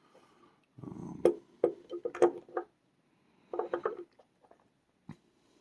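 Small metal lock parts being handled as the plug is drawn out of a five-pin Euro profile cylinder: a short rubbing rumble, then a quick run of sharp metallic clicks, another cluster of clicks near four seconds, and a few single ticks near the end.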